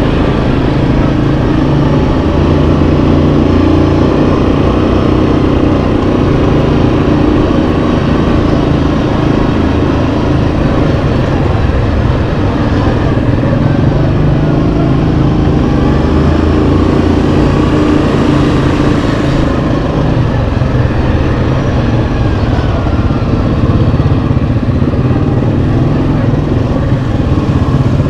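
Yamaha Kodiak 700 ATV's single-cylinder four-stroke engine running steadily under a working throttle, its pitch stepping up and down as the machine speeds up and eases off.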